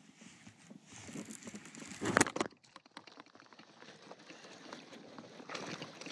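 Close handling noise of hands working a fishing lure and baitcasting reel: scattered small clicks and rustles, with a louder short rustling burst about two seconds in.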